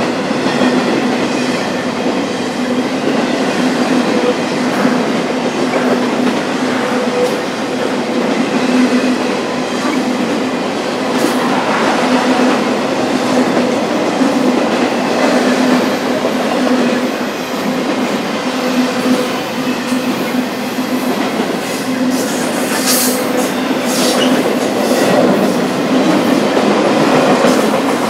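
Intermodal freight train's cars rolling past on the rails: a steady loud rumble with a constant hum. A few brief, sharp high-pitched sounds come in near the end.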